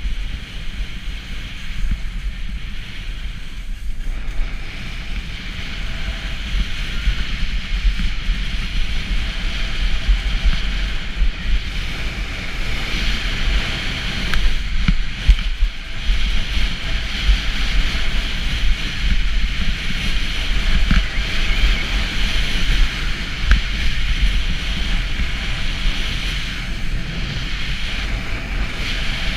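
Wind buffeting a GoPro's microphone with a low rumble, over the steady hiss and scrape of skis running on packed snow during a fast descent; the hiss grows louder about halfway through.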